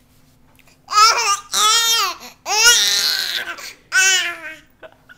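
A 20-week-old baby vocalizing: four loud, high-pitched calls in a row, each sliding down in pitch, starting about a second in.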